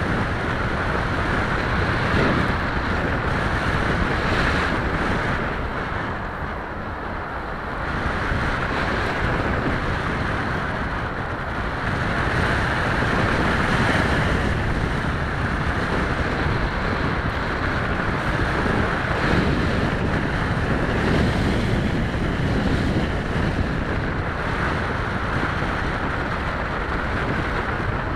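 In-flight audio from an EPP foam FPV model plane: wind rushing over the onboard microphone together with the plane's propeller motor running steadily, dropping in level for a couple of seconds about six seconds in.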